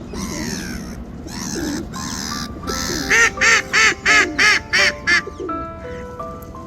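Welsh Harlequin ducks quacking: a few rough calls, then a quick run of about seven loud quacks, roughly three a second, from about three seconds in. Background music with sustained notes plays underneath.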